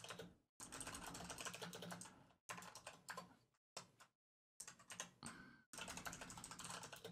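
Typing on a computer keyboard: quick runs of keystrokes in several bursts, broken by short silent pauses.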